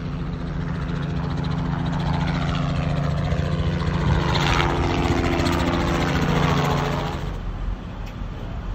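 Light two-blade helicopter flying low past overhead: a steady engine and rotor hum that grows louder to a peak around the middle, falling in pitch as it passes, then drops off about seven seconds in.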